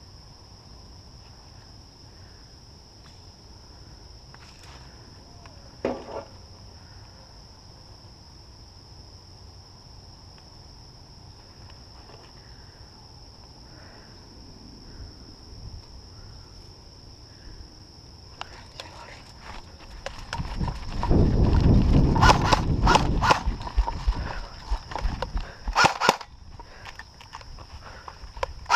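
Airsoft guns firing in a quick run of sharp snapping shots in the last third, over a loud low rushing from the camera wearer moving. A steady high-pitched insect drone runs underneath.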